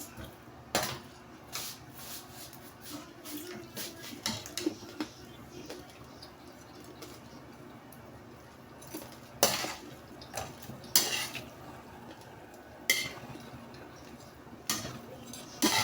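Metal utensil clinking and scraping against a cooking pot in scattered, irregular knocks, the sharpest ones coming in the second half.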